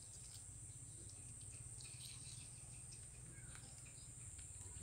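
Quiet background with a steady high-pitched insect drone, with a few faint small ticks about two seconds in.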